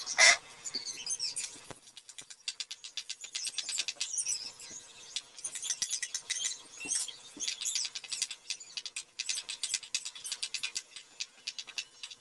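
Hot cooking oil crackling and popping in an aluminium wok as chopped onion and garlic are sautéed. There is a louder short burst just after the start.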